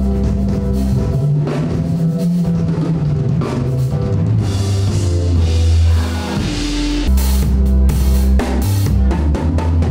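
A live band playing: a drum kit with kick, snare and cymbals keeps a beat over deep held bass notes and keyboard chords.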